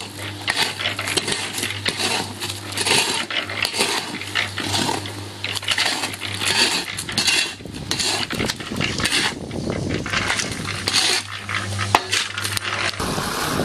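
Electric drum concrete mixer running with a steady hum while its drum tumbles a dry, crumbly slag-and-ash cinder-block mix, giving a continuous gritty rattle and clatter. A single sharp knock comes near the end.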